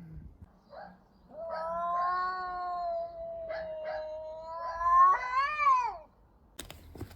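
Domestic cat yowling a long, drawn-out caterwaul of about five seconds, wavering and then rising and growing louder near the end: the warning cry of a cat in a standoff with another cat. A short burst of scuffling noise follows.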